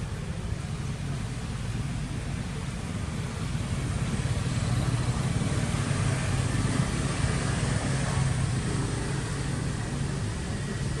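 Steady low hum of an engine running, with a broad hiss over it, growing a little louder through the middle.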